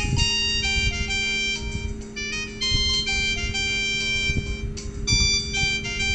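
Samsung GT-E1195 mobile phone playing one of its ringtones: a quick, bright synthesized melody of short notes, over a steady low hum.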